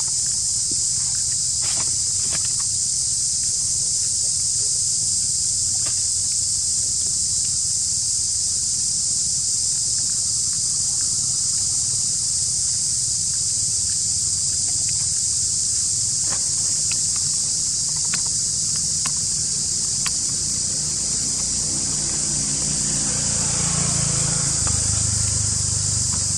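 Steady high-pitched insect chorus in the surrounding forest, with a few faint clicks, and some rustling near the end.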